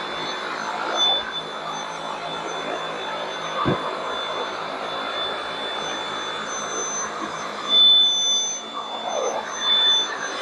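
Dyson V8 cordless stick vacuum running steadily as its carpet cleaning head is pushed over carpet: a steady rushing of air with a high motor whine on top. A single short knock comes a few seconds in, and the sound swells louder briefly near the end.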